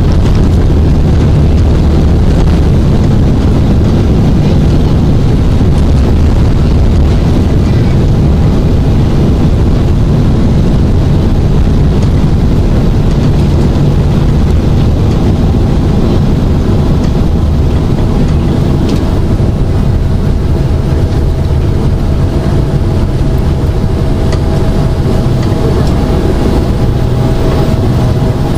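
Boeing 767-400ER landing rollout heard from inside the cabin: a loud, steady rumble of the engines and the wheels on the runway as the airliner slows with its spoilers raised. A faint whine comes in during the last third.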